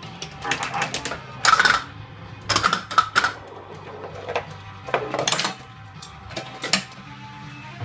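Pinball machine in play: the ball striking pop bumpers and targets gives clusters of sharp mechanical clacks and knocks, about a second apart, over the game's electronic music and sound effects.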